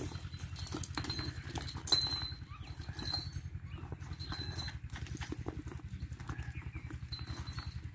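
Water buffaloes moving about and feeding at a concrete trough: scattered knocks and clatter in the first few seconds, the loudest about two seconds in. Under them runs a fast, steady, low thumping.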